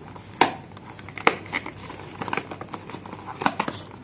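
Small cardboard product box being opened and handled by hand: scattered sharp taps, scrapes and crinkles of cardboard and packaging. The loudest come about half a second in and again just over a second in.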